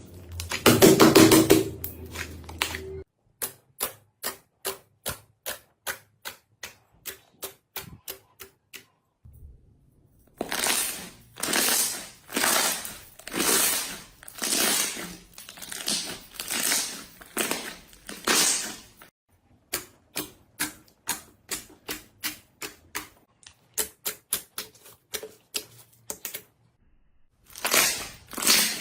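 Slime being pressed, poked and stretched by hand: runs of short, sticky clicks and pops at two or three a second, with a stretch of longer, slower squishes roughly once a second in the middle and again near the end.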